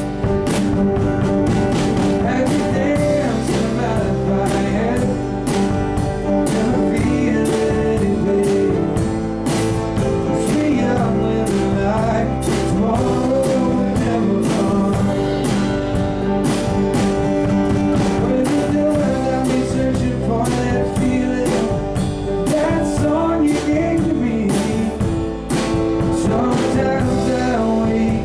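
Live band playing an instrumental stretch of a country-rock song: a steady drum beat under guitars and bass, with a gliding lead melody line on top.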